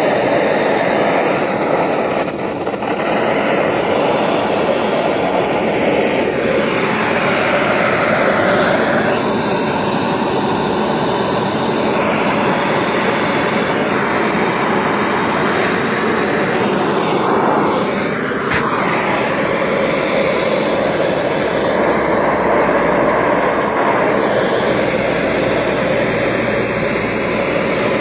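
Hand-held propane torch burning with a steady hiss as its flame scorches the surface of cedar wood. The sound shifts a few times as the flame is moved over the carving, with brief dips about two and a half and eighteen seconds in.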